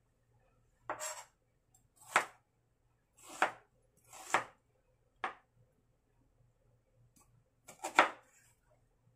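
A kitchen knife slicing an onion on a plastic cutting board: about six separate, unhurried cuts at uneven intervals, with a longer pause before the last one.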